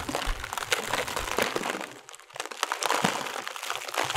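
Crackling sound effect of a confetti shower after a burst: a dense run of small sharp crackles and crinkles that thins out briefly about two seconds in.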